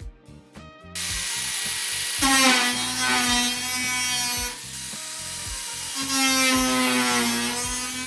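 Beer being poured out of a can, a loud rushing, fizzing pour that starts about a second in and comes in two stronger stretches, over background music with a steady beat.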